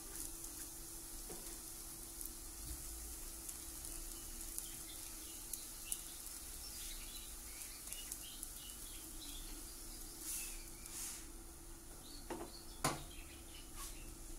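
Crêpe cooking in a hot non-stick frying pan: a faint steady sizzle with small scattered pops, over a low steady hum. A single sharp knock near the end.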